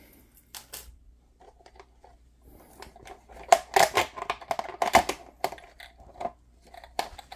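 Packaging being handled and opened by hand: rustling and crinkling with scattered clicks and knocks, busiest in the middle.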